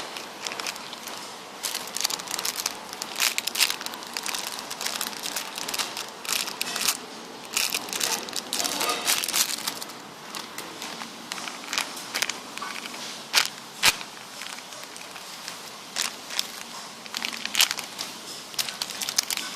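Irregular crinkling and crackling as homemade sponge squishies are handled and squeezed.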